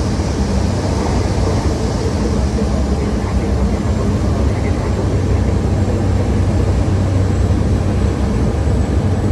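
Cessna 208 Grand Caravan's single PT6A turboprop engine and propeller running steadily, heard inside the cockpit on final approach to land, with a faint high whine over the low drone.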